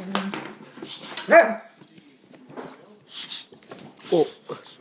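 Dog making odd barking and whining noises at an air pump it hates: one loud pitched bark-yowl, falling in pitch, about a second in, and a shorter whining call near the end.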